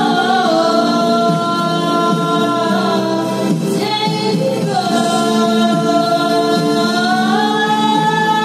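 A girl singing into a handheld microphone over an instrumental backing track, holding two long notes, the second sliding upward near the end.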